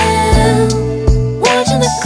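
Background music: a song with held melody notes over bass and a steady beat.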